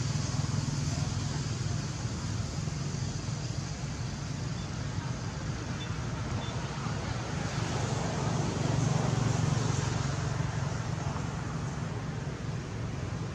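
Steady outdoor background rumble and hiss, like distant road traffic, swelling slightly about two-thirds of the way through.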